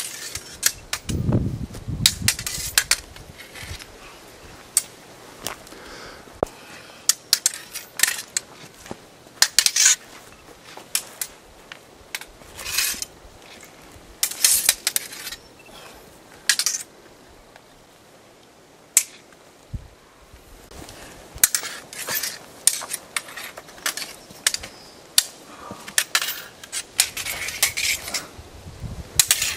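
Wooden sticks clacking against each other in stick-fighting sparring: irregular sharp knocks, often in quick flurries of several strikes, with a quieter lull about two-thirds of the way through.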